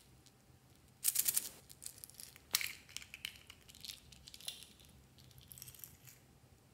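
Small plastic capsule being pulled open: a quick run of plastic clicks and crackles about a second in, the loudest part, and a sharp click a moment later. Then light scattered ticks and rattles as tiny pieces are shaken out of the little container onto the slime.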